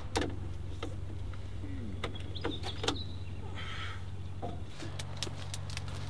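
Scattered sharp metallic clicks and knocks as jumper leads and battery clamps are handled at the batteries of an old truck, over a steady low mechanical hum.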